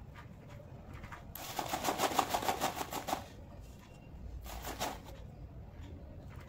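Embroidery thread drawn through taut fabric on an embroidery frame: a rapid ticking rasp lasting about two seconds, then a shorter one about a second later.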